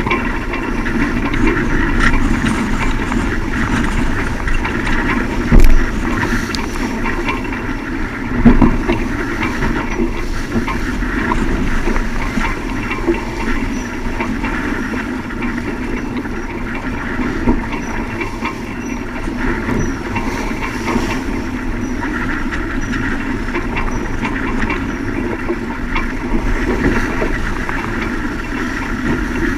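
Strong wind and rushing sea on a sailing yacht underway in a gale: a steady loud noise, with two louder thumps about five and a half and eight and a half seconds in.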